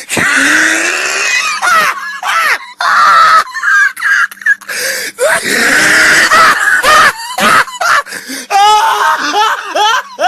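A person laughing hysterically: long, loud, wheezing breaths broken by high squealing cries, in several bursts.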